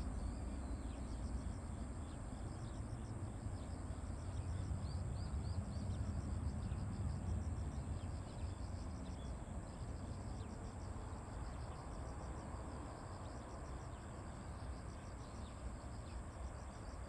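Low, distant rumble of an Embraer E170's twin CF34 turbofan engines as the airliner climbs away after takeoff, swelling slightly and then easing off in the second half. Insects chirp in a steady, rapid rhythm over it.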